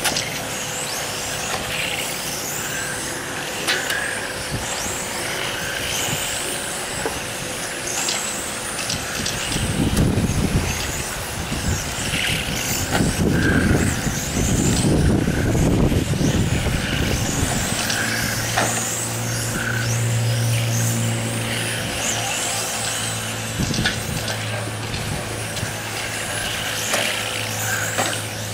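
Electric RC touring cars racing past, their motors and drivetrains whining in short high-pitched sweeps that rise and fall as each car goes by. A louder low rumble comes through the middle, and a steady low hum runs underneath in the last third.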